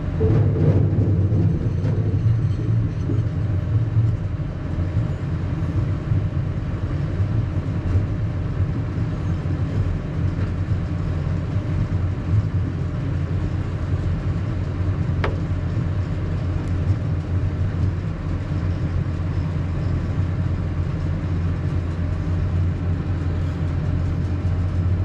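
Steady low drone of a tractor and a sugar beet harvester working side by side, heard from inside the tractor cab, while the harvester's elevator unloads sugar beets into the trailer. A single sharp click comes about fifteen seconds in.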